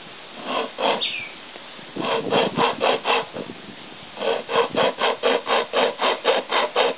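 Hand-pulled pocket chainsaw chain sawing back and forth through a log about five inches thick, with quick rasping strokes at about four a second. It comes in short runs, with a pause before a longer run starting about four seconds in.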